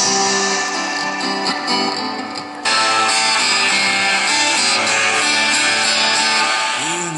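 Background music: a guitar-driven rock track with strummed guitars, growing fuller and louder about two and a half seconds in.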